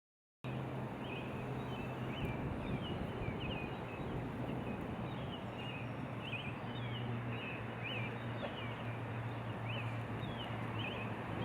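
Small birds chirping, short high calls repeated every second or so, over a steady outdoor hiss and a low hum. The sound starts abruptly half a second in.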